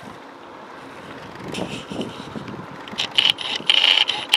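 Bicycle riding on a paved road, heard from a camera on the bike: a low rumble of tyres and wind, then loud clicking and rattling from the bike in the last second and a half.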